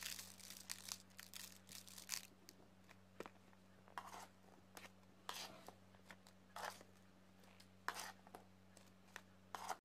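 Quiet rustling and scraping from handling food in a plastic container, in short irregular bursts about once a second, over a steady low electrical hum.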